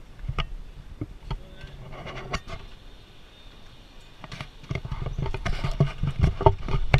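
Footsteps and handling knocks from a handheld camera rig: irregular clicks over a low rumble, getting louder and busier about two-thirds of the way through as the walker goes down stone steps.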